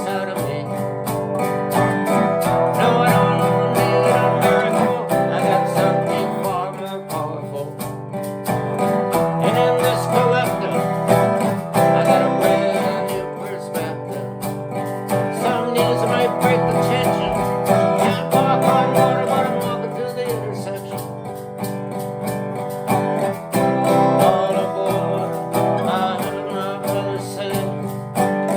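A song with strummed acoustic guitar and singing.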